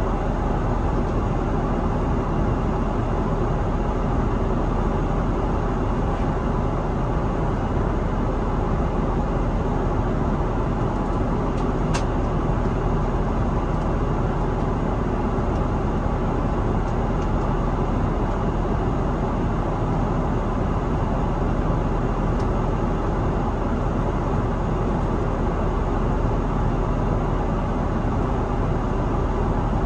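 Steady cabin noise of an Airbus A330-900neo in flight: an even rush of airflow and engine noise that holds constant, with one faint click about twelve seconds in.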